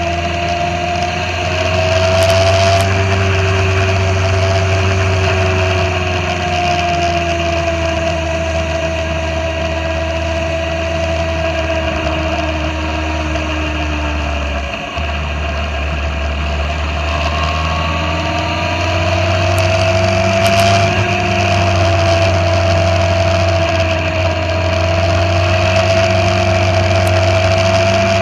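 Motorcycle engine running under way: its pitch falls slowly through the first half and drops out briefly about halfway, then climbs again as the bike picks up speed.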